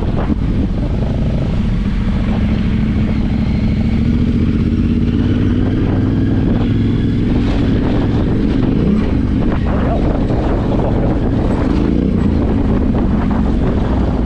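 Yamaha Ténéré 700's parallel-twin engine running under load off-road, its pitch rising and falling with the throttle, with scattered knocks from the bike over rough ground.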